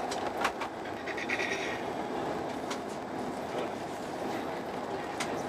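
Steady running noise of a moving Eurostar Italia train heard inside the passenger carriage, with about three short sharp clicks.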